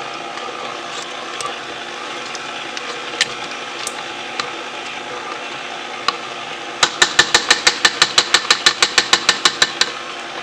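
KitchenAid stand mixer running, its beater working thick cheesecake batter in a stainless steel bowl: a steady motor whir with a few light clicks. About seven seconds in comes a rapid run of sharp, regular clicks, about eight a second. It lasts some three seconds and is the loudest sound.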